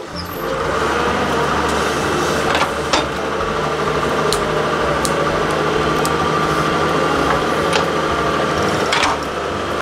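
Diesel engine of a Doosan DX140W wheeled excavator running steadily, with a few sharp knocks scattered through it.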